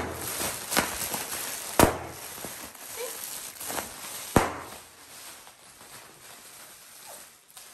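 Plastic bubble packaging popped by hand: three loud sharp pops, at the start, about two seconds in and about four and a half seconds in, with smaller pops and crackling between, dying away after about five seconds.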